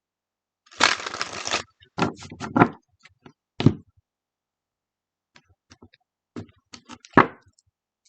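A tarot deck being handled: a short rushing shuffle of cards about a second in, then a series of sharp slaps and taps as cards are knocked and laid down on a hard surface.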